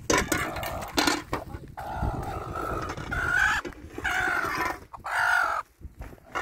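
Chicken calling: a string of drawn-out calls over about four seconds, with a couple of sharp knocks just before them.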